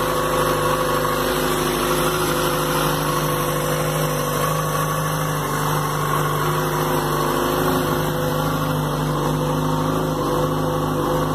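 Yamaha FZ6's 600 cc inline-four engine idling steadily at an even pitch.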